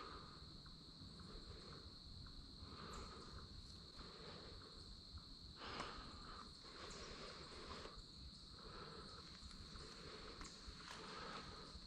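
Steady high-pitched trilling of insects, a continuous chorus at one pitch over faint woodland background, with a faint brief tap or rustle about six seconds in.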